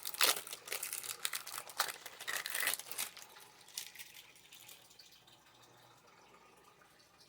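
Plastic packaging crinkling and rustling in the hands, in quick irregular crackles for about three seconds, then dying away to faint room tone.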